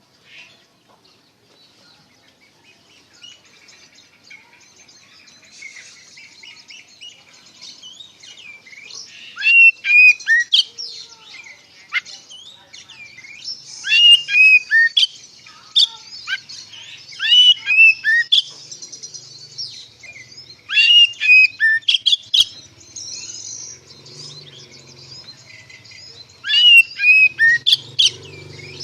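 Oriental magpie-robin (kacer) singing loudly: repeated phrases of rapid, sliding whistled notes, about five phrases a few seconds apart, over a fainter continuous twitter.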